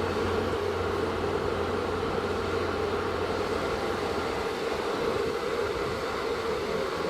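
Small computer cooling fan running steadily in a homemade USB air cooler powered from a 5-volt phone charger, a continuous whir of blade noise and rushing air.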